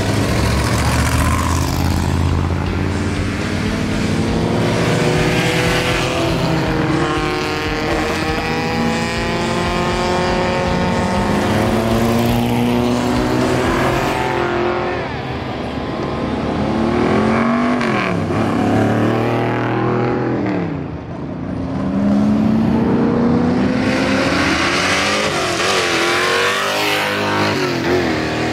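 Race car engines revving hard as cars accelerate away from a hill climb start line, one after another. Each run's pitch climbs and drops back with the upshifts.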